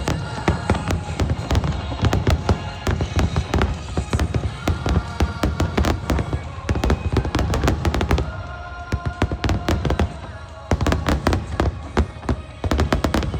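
Aerial fireworks bursting in rapid volleys of bangs and crackles, with music playing under them. The bangs ease off about eight seconds in and return thick about three seconds later.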